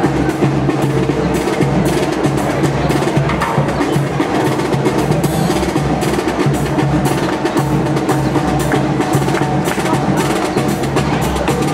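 Brass and percussion marching band playing a tune, the horns carried over rapid snare-drum and wood-block rhythm.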